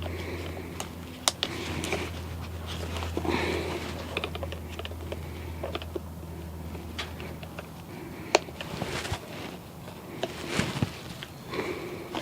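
Hands working plastic clips and hose connectors on a car's EVAP system: scattered clicks, taps and knocks with rustling handling noise, two sharper clicks about a second in and eight seconds in. A steady low hum runs under it and fades out about seven seconds in.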